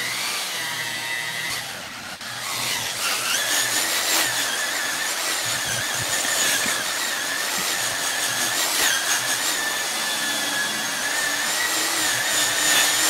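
Electric paint polisher spinning a foam compounding pad against a truck's painted fender, its motor whining steadily. The pitch rises about two to three seconds in, then wavers slightly as the pad works the surface. It is compounding out fine sanding scratches with metal polish.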